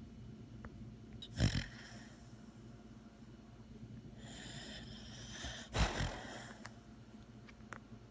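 Dog snoring, with two loud snorts about four seconds apart and a hissing breath leading into the second.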